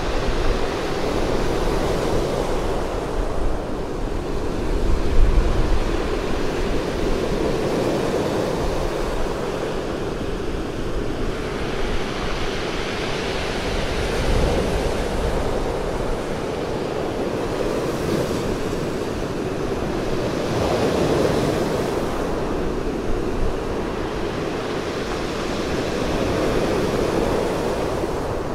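Sea surf breaking and washing up a pebble beach, a continuous rush that swells with each wave every few seconds.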